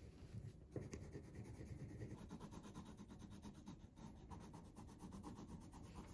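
Faint scratching of coloured pencils on paper, with one light tap just under a second in.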